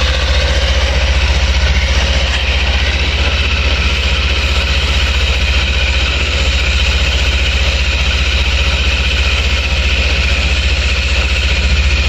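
Suzuki DL250 motorcycle engine running steadily, with the drive chain running dry of oil, which makes a little noise.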